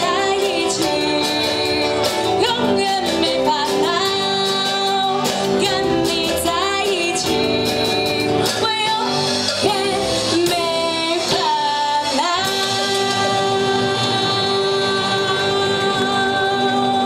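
Live band music: a woman singing into a microphone over electric guitar, bass guitar and drums. In the last few seconds the music settles on one long held note.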